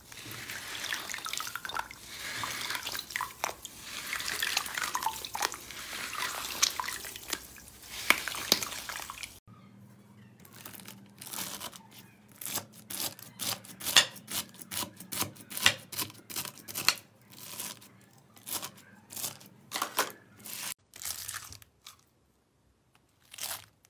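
Glitter-coated dry floral foam crunching and crackling steadily as hands squeeze and crush it. After a sudden cut, a blade pressing into a bead-studded slime gives a run of separate sharp clicks and pops, several a second, that stop about four seconds before the end.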